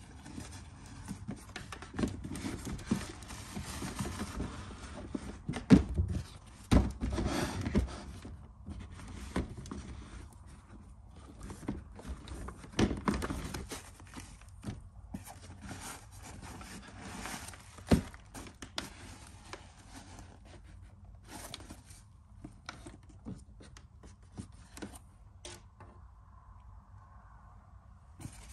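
Handling noises of a pair of sneakers and their cardboard shoebox: rustling wrapping with a scatter of taps and knocks, the loudest thumps about six and seven seconds in and again around thirteen and eighteen seconds, thinning out in the last several seconds.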